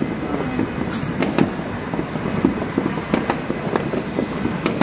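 New Year's Eve fireworks and firecrackers going off all around, with many irregular sharp cracks and pops over a continuous rumble of overlapping blasts.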